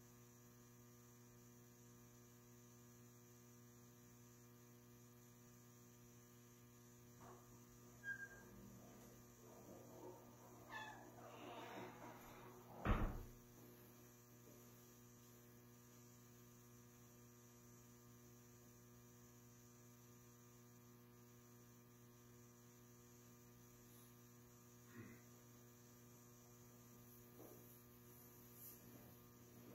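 Near silence with a steady electrical mains hum. Midway there are a few faint sounds whose pitch rises and falls, ending in a single sharp thump.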